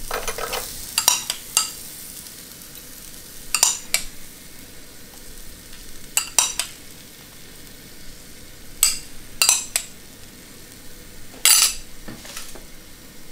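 A metal spoon clinking and scraping against a glass cup as yogurt is spooned out, in small clusters of clicks every couple of seconds. Under it, a steady faint sizzle from the hot roasting tray of chicken wings.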